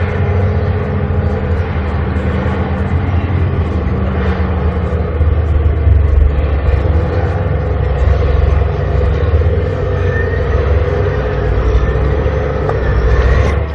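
Heavy construction machinery running steadily, a loud low engine rumble with a steady hum.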